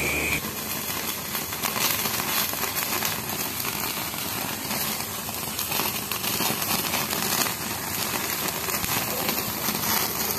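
Wild boar fat crackling and spitting as it drips into a gas stove burner's flame while the hide is singed, over a steady hiss, with a fine rain-like patter of small pops.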